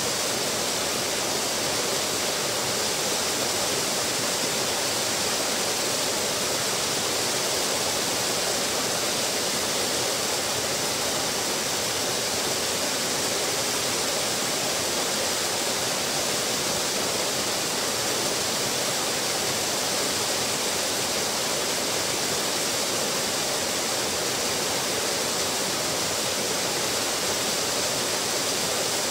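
Small waterfall pouring over a stone ledge into a pool: a steady, unbroken rush of splashing water.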